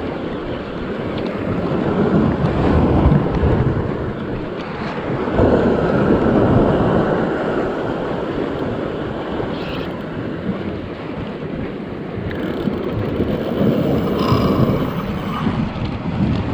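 Sea surf washing against rocks below a cliff, with wind buffeting the microphone. The noise swells and eases every few seconds as waves come in.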